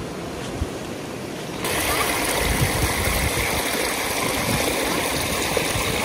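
A small creek running over rocks and into shallow pools: a steady rushing of water that gets louder about a second and a half in.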